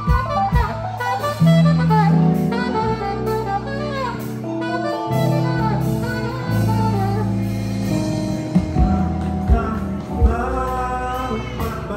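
Saxophone playing a melody line over a live band with bass and drums. Near the end a voice sings into the microphone over the band.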